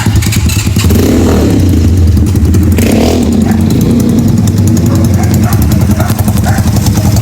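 Motorcycle engine running steadily and loud at close range through an open, straight-pipe style exhaust, its firing pulses rapid and even.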